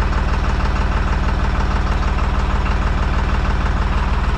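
Deutz-Fahr 55F tractor's diesel engine idling steadily with an even, rapid pulse, warm and set at its correct idle speed.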